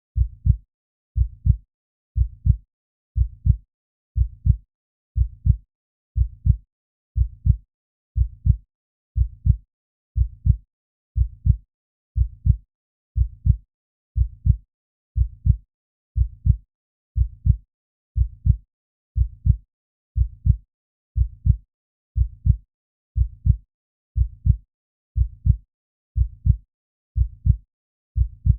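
Heartbeat sound effect: low double thumps (lub-dub) at a steady rhythm of about one beat a second.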